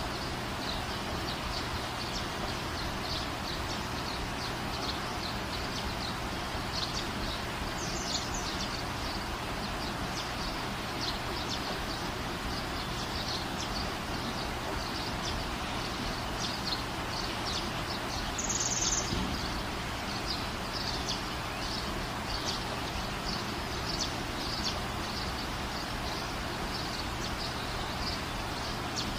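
Steady background hiss with many short, high-pitched chirps scattered through it, and one louder high chirp a little past the middle.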